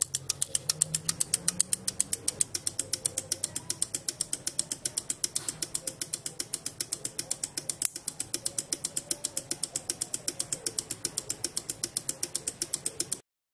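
Three 12 V double-pole relays in a capacitor-timed chaser circuit clicking rapidly and evenly as they switch on and off in turn, several clicks a second. The clicking cuts off suddenly near the end.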